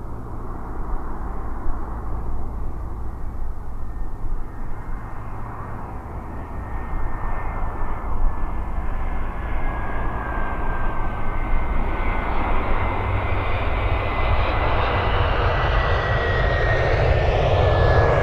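Airbus A321 airliner on final approach. Its jet engines grow steadily louder as it closes in, with a high whine that slides slowly down in pitch and a deep rumble that swells toward the end as it passes close overhead to the runway.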